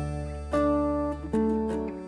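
Background music: an acoustic guitar plucking single notes that ring and fade, over a held low bass note.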